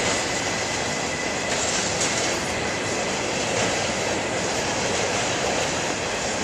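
Norfolk Southern freight train's empty cars rolling across a steel girder railroad bridge: a continuous, steady noise of steel wheels on the rails.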